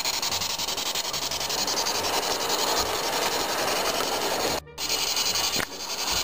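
Garden-scale model train running along its track: a steady grinding rumble of wheels and running gear on the rails. It drops out twice, briefly, near the end.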